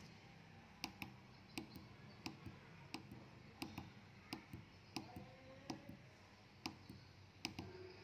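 Small tactile push button on a breadboard pressed again and again, giving faint sharp clicks, about ten of them at roughly one every two-thirds of a second.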